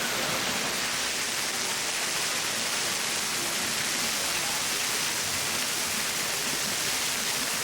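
Bua Tong Waterfall's water rushing steadily over the rocks, an even hiss-like roar.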